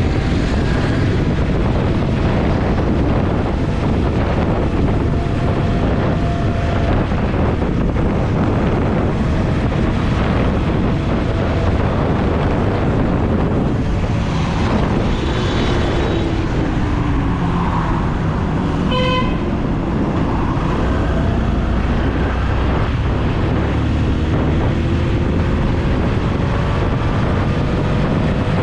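Motorcycle riding through traffic, heard from a helmet-mounted camera: a steady rush of wind on the microphone over the bike's engine and passing vehicles. A short vehicle horn honk sounds about two-thirds of the way through.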